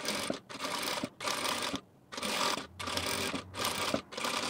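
Industrial sewing machine stitching through bag lining fabric. It runs in short bursts of about half a second, stopping briefly between them, about seven times.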